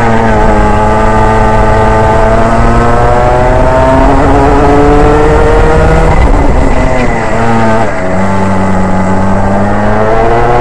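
Racing kart engine at full throttle, heard onboard, its pitch climbing steadily. About six seconds in the note breaks up and falls as the driver comes off the throttle, then climbs again under acceleration.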